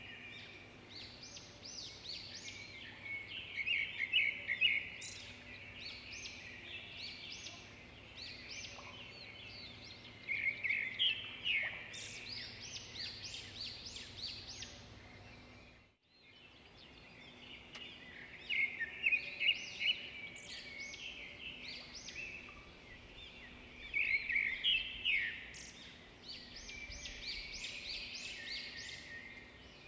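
Small birds chirping in repeated bursts of quick, high calls over a faint steady background hum; the sound drops out briefly about halfway through.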